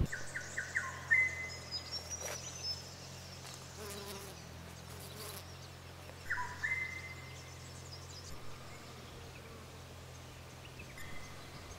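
A bee buzzing steadily around a flower, with short high chirps a few times: at the start, about six seconds in, and near the end.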